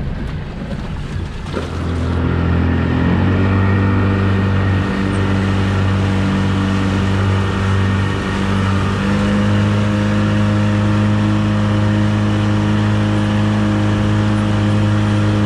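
40 hp two-stroke outboard motor on a Progress motorboat under way through waves: its revs climb about two seconds in, then it runs steadily at high speed, rising a little more around nine seconds.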